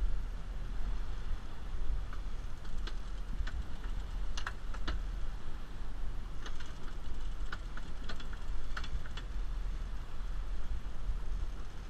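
Fishing reel clicking irregularly as a hooked fish is reeled in, a dozen or so sharp ticks over a steady low rumble.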